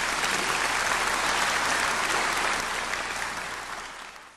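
Audience applauding, steady, then fading out near the end.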